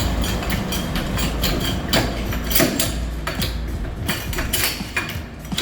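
Irregular metallic clicks and knocks of hand tools and a car jack being worked at a wheel, over a steady low rumble.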